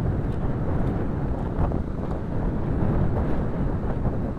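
Wind buffeting the microphone: a steady, rumbling noise heaviest in the low end.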